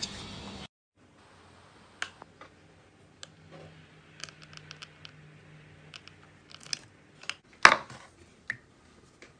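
Slime being poked and squeezed by hand: scattered sticky clicks and small crackling pops, with one louder pop near the end.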